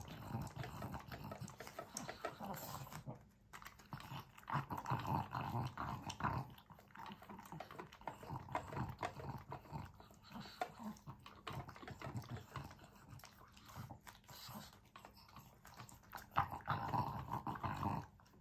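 A pug licking its empty raised food bowl clean: wet laps and small clicks of tongue against the bowl, coming in irregular bursts with short pauses.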